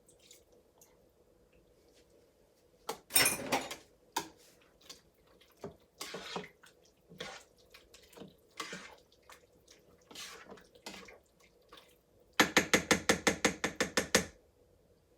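Spoon scraping and knocking in the cooker's pot as soy sauce is stirred into the curry, a series of separate clatters, then a quick even run of clicks, about seven a second, for roughly two seconds near the end.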